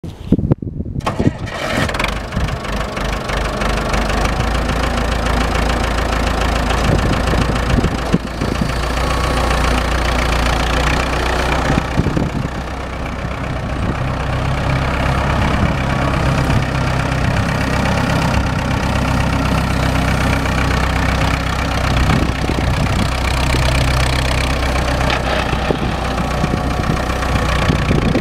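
Massey Ferguson 180's four-cylinder diesel engine running as the tractor is driven across the yard, uneven for the first second or so, then steady, with small changes in level as the driver works the throttle.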